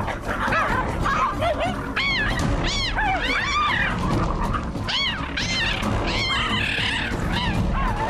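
Cheetahs yelping and squealing in a fight: many short, high calls that rise and fall in pitch, coming in quick clusters, over background music.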